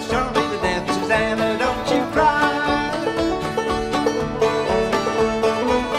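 Background music with a fast run of quickly picked notes over a steady accompaniment.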